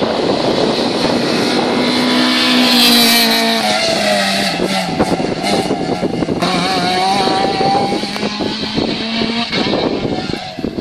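Rally car engine at full throttle, its pitch climbing and dropping through gear changes.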